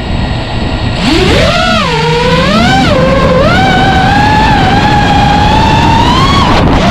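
5-inch FPV quadcopter's brushless motors and propellers whining, the pitch jumping up sharply about a second in, then dipping and climbing again with the throttle, over heavy wind rush on the onboard microphone.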